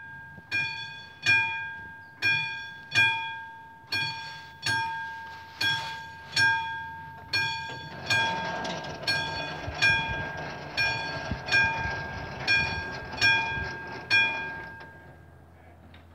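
AŽD 71 level-crossing warning bell striking at a steady beat, a little over once a second, each stroke ringing on. It signals an approaching train while the barriers lower. A steady rushing noise joins about halfway, and the strikes stop near the end once the barriers are down.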